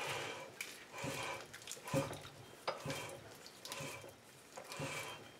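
Lathe chuck on a newly made steel back plate being screwed by hand onto the 1-5/8-inch threaded spindle of a South Bend 11 lathe, a test fit of the freshly cut threads. The metal threads rasp faintly with each turn, about once a second, with a few light clicks.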